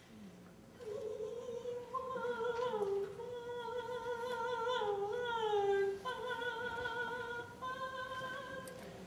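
Peking opera music: a single high melodic line starts about a second in and runs as a long phrase of held, wavering notes that slide downward, with a few short breaks between notes.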